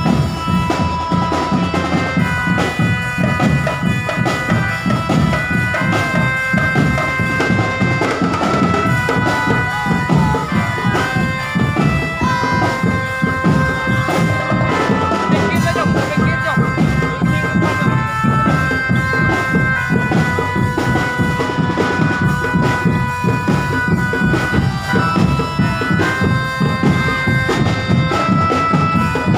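Loud drumband music: a reedy, nasal wind melody of held notes stepping up and down over steady, dense drumming.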